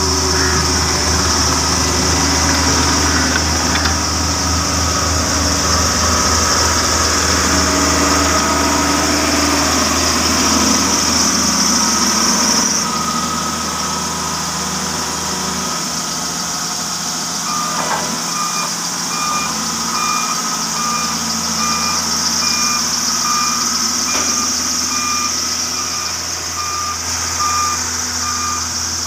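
Engine of heavy road-construction machinery running steadily. About halfway through, a reversing alarm starts beeping at an even pace.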